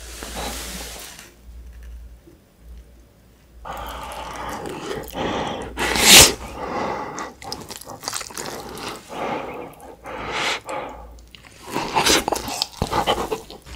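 Close-miked eating sounds of a person taking a spoonful of rice and galbitang broth. About six seconds in comes a loud slurp off the spoon, followed by wet chewing with smacks and mouth clicks.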